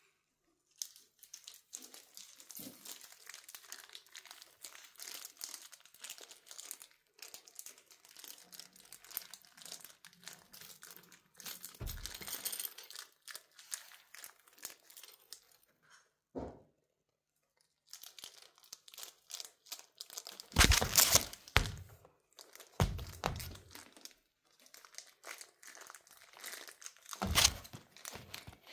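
Crinkly material rustling and crinkling as a cat plays with its toys: irregular rustles and small ticks, with a few louder crinkling bursts, the loudest about two-thirds of the way through and another near the end.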